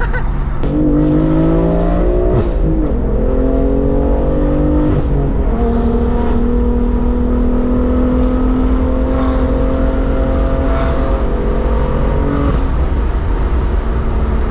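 BMW M4's twin-turbo inline-six through a straight-piped exhaust with its valves open, heard from inside the cabin under hard acceleration. The revs climb and drop at two quick upshifts, about two and five seconds in, then hold a long rising pull before easing off about twelve seconds in, over a heavy rumble of wind through the open windows.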